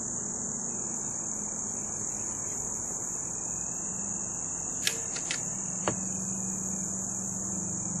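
Insects trilling in a steady, unbroken high-pitched chorus, with three sharp clicks about five to six seconds in.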